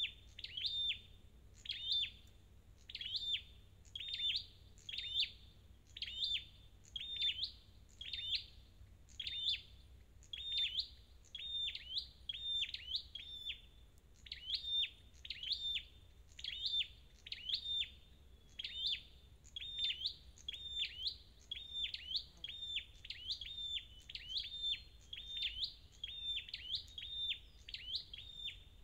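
Flowerpecker (the red-headed 'chim sâu đầu đỏ') calling: a high, sharp phrase of quick downward-sweeping chips repeated steadily about once a second, with one brief pause about halfway through.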